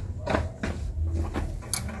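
A series of light clicks and knocks, about half a second apart, from metal parts being handled on an industrial sewing machine's clutch motor, over a low steady hum.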